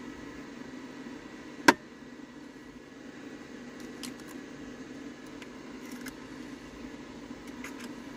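An egg knocked once, sharply, on the rim of a nonstick frying pan to crack it, then a few faint clicks of shell as it is opened into the pan, over the steady hum of a fan.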